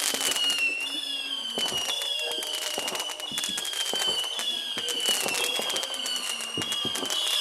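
Fireworks going off continuously: a string of high whistles, about one a second, each sliding slightly down in pitch, over steady crackling and popping.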